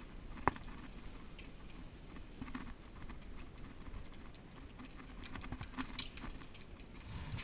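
Footsteps and gear rustling as an airsoft player moves about, with one sharp click about half a second in, the loudest sound.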